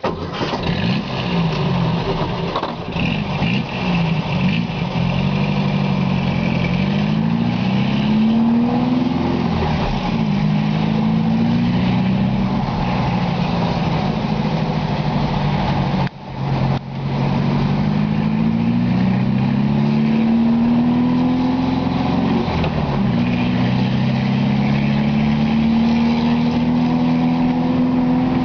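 Volkswagen Beetle's air-cooled flat-four engine through a Puma-style 4-into-1 exhaust with a turbo-type tip, driven at low speed: the exhaust note rises as the car accelerates and falls back at each gear change, over and over. The sound dips briefly about two-thirds of the way through, and near the end it climbs slowly in one long pull.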